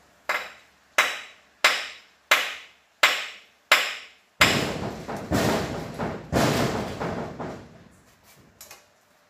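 Six sharp knocks, evenly spaced about two-thirds of a second apart, then a few seconds of loud rattling and banging that fades away.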